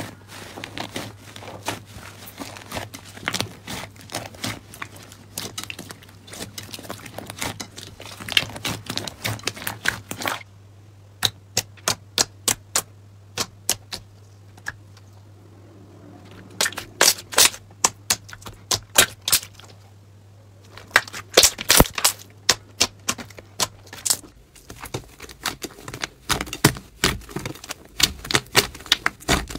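Thick slime being squeezed and pressed by hand, its trapped air pockets popping in sharp clicks: a dense crackle at first, then sparser, louder single pops and quick runs of pops. A steady low hum sits underneath until near the end.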